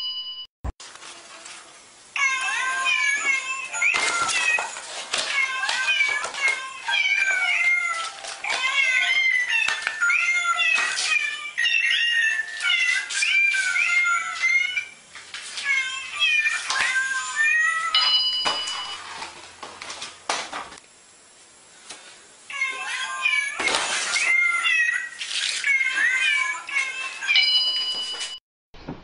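Musical greeting card playing a tune of quick, bending cat-meow notes in long runs, with a pause in the middle. A short chime sounds at the start, again about 18 s in and near the end.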